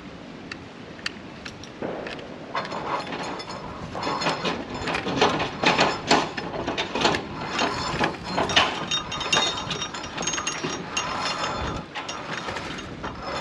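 Metal clicking and rattling of climbing safety hardware, a continuous-belay trolley and carabiners on the steel safety cable, as a climber comes up an aluminium ladder. It starts about two seconds in and keeps up as a busy, uneven run of clicks.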